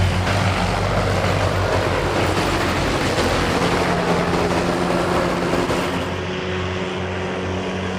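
Helicopter engine and rotor running steadily: an even rushing noise with a low steady hum, easing off slightly about six seconds in.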